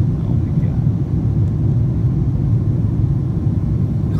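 Steady low cabin drone of a Boeing 777-200ER in flight: engine and airflow noise heard from inside the passenger cabin.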